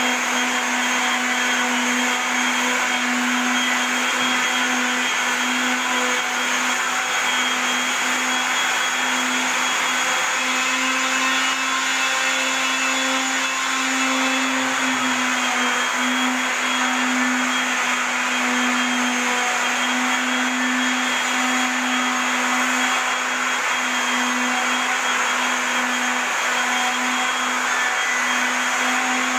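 Corded handheld electric sander running steadily as it sands wooden floorboards: an even motor hum at one constant pitch over a steady hiss of the pad on the wood.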